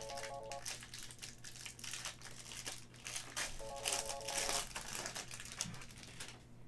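Clear cellophane wrap on a pack of trading cards crinkling and crackling in irregular spurts as it is peeled and pulled off the card stack, dying away near the end.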